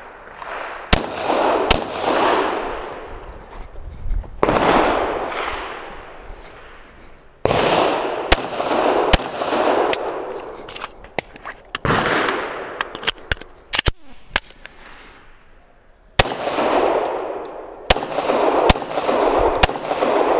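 Pistol shots fired in quick pairs and short strings, with pauses of a second or more between groups, each shot trailing a long echo across the range.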